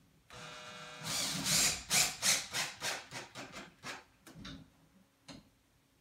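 A plastic zip tie being pulled through its ratchet lock: a short steady buzz as the strap runs through, then about a dozen quick rasping tugs that come faster and fainter as it is drawn tight.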